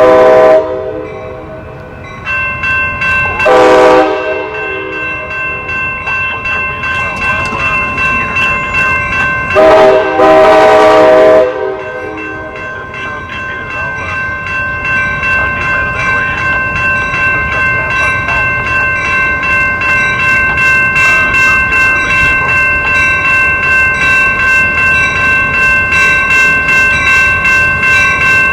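Locomotive horn sounding three blasts, the last the longest, as a train passes. A bell rings steadily from about two seconds in and grows louder toward the end.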